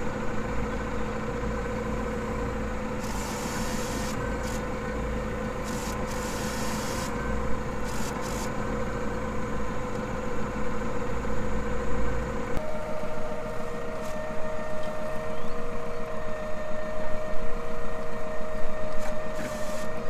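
Tractor engine running steadily while pulling a reversible plough that is marking out a back furrow. About twelve seconds in the engine note changes and a higher steady whine joins it.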